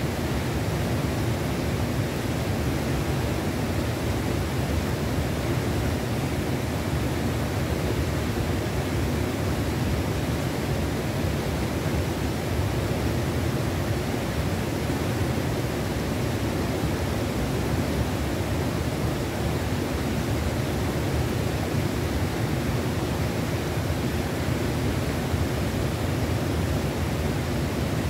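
Steady rush of river water, an even noise that holds without change.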